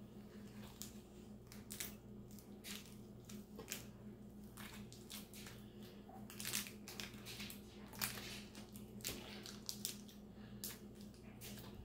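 Plastic wrapper of an MRE beef jerky stick crinkling and crackling in irregular bursts as it is picked and torn open by hand.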